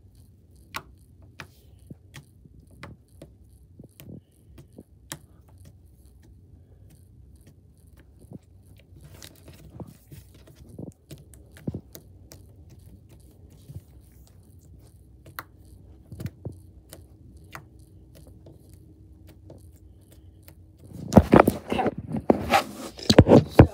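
Slime being pressed and poked by fingers on a tabletop, giving scattered small clicks and pops. Near the end, a loud burst of rustling and knocking from the camera being handled.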